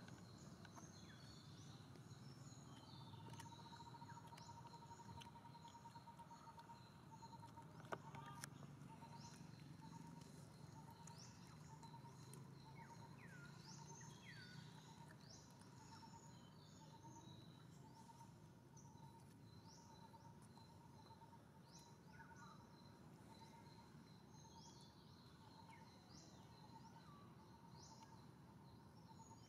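Faint outdoor ambience: scattered short bird chirps and a steady repeated call that pulses several times a second, over a low background hum.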